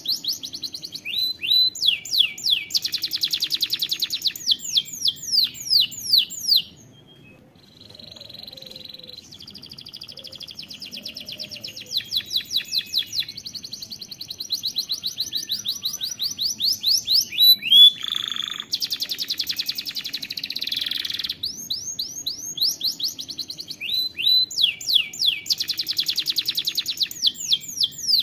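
Domestic canary singing a long song of fast, rapidly repeated trills and rolls, high-pitched, with a short pause about seven seconds in.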